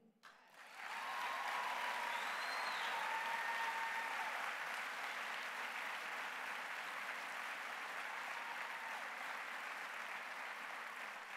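Audience applauding after a line of a speech, starting about a second in and slowly dying away toward the end.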